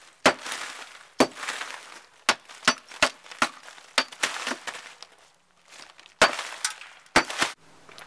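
A used glass-furnace crucible, with glass still fused inside it, being smashed apart by repeated blows from a long-handled tool: about a dozen sharp cracking strikes with glass and ceramic pieces clinking and clattering after them, a pause about five seconds in, then a few more strikes.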